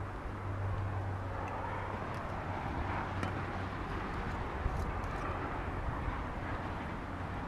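Steady outdoor vehicle noise with a low hum that swells a little mid-way, plus a few faint clicks.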